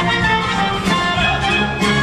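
Polish folk dance music played by an orchestra with fiddles, with a sharp accent about once a second.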